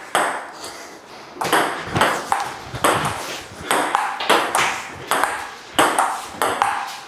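Table tennis rally: the ball clicking off the paddles and the table, about two hits a second.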